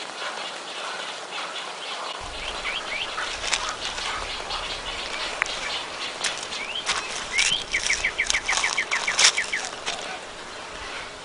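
Wild birds chirping, with short rising calls and, about eight seconds in, a fast trill of about a dozen quick repeated notes. Scattered sharp clicks and rustling sound under the calls.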